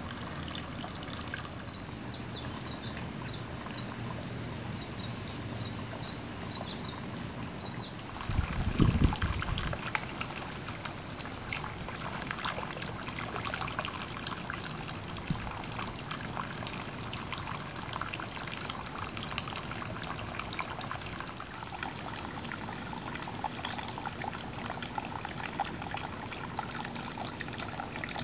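Water trickling and splashing steadily, with one heavy low thump about a third of the way through.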